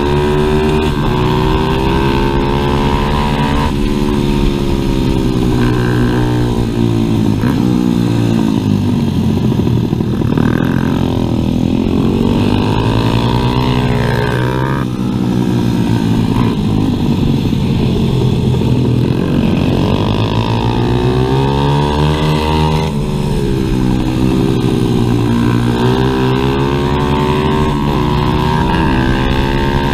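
Onboard sound of a stock 140cc pit bike's single-cylinder four-stroke engine under race use. The revs climb repeatedly through the gears and drop off for corners, with one long climb and fall about halfway through.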